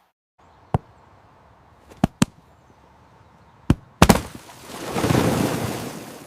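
A string of sharp single cracks, one of them a quick pair, then a cluster of cracks about four seconds in, followed by a noisy whoosh that swells and fades over about a second and a half.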